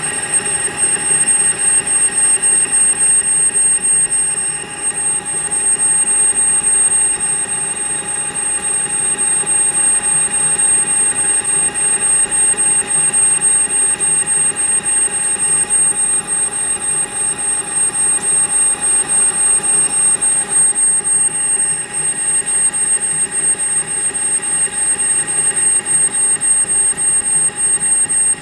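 Metal lathe running through a boring cut, with a steady high-pitched whine over the machine noise.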